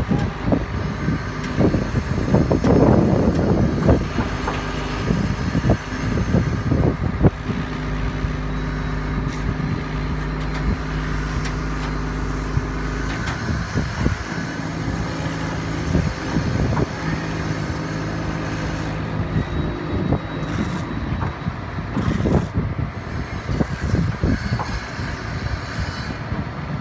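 Boom truck engine running to power its crane while a tile pallet is lifted. It makes a steady hum of constant pitch that falls away about halfway through, with scattered knocks and clunks.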